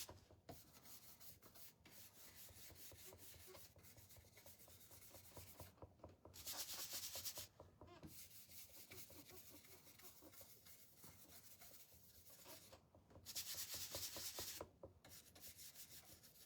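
Dark antiquing wax being rubbed lightly over a painted wooden cutting board: faint, continuous scratchy rubbing strokes. There are two louder, brisker stretches of about a second and a half each, around six and thirteen seconds in.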